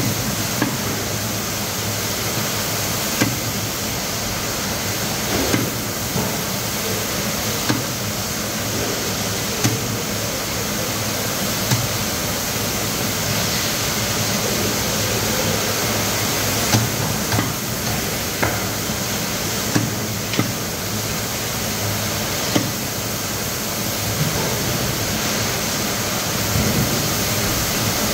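Threadfin fish being cut into steaks with a cleaver on a thick wooden chopping block: a sharp knock every second or two as the blade chops through and strikes the wood, over a steady background hiss.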